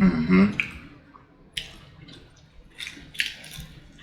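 A man eating saucy fried chicken: a brief loud hum in the first half-second, then wet chewing and lip-smacking clicks, spaced about a second apart.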